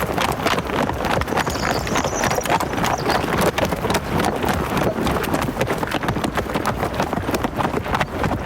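Hooves striking the ground in a rapid, dense, overlapping run: hoofed animals galloping.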